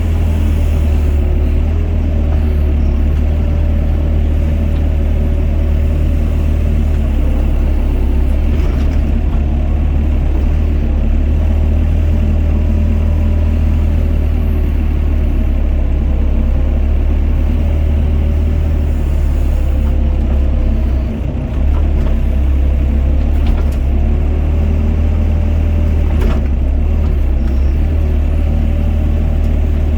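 Doosan DX55 mini excavator's diesel engine running steadily under working load, its pitch wavering slightly as it works, with a brief drop in level about two-thirds through and a few faint knocks.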